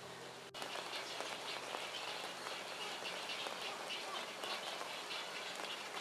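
Forest stream babbling over rocks, a steady rush of water, with birds chirping. The sound drops out briefly about half a second in and then carries on.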